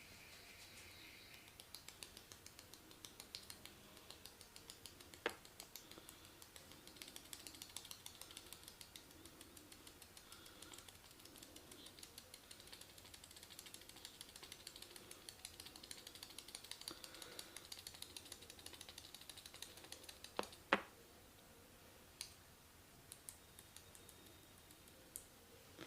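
Faint, rapid clicking and crackling from hands working over the head and hair during a massage, several clicks a second, ending in two sharp cracks close together, followed by a few scattered clicks.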